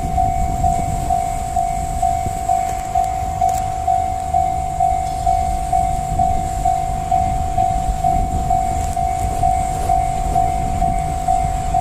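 Level-crossing alarm ringing steadily about twice a second, over the low rumble of a DD200 diesel-electric locomotive and its container wagons running through the crossing; a steady low engine hum joins about four seconds in.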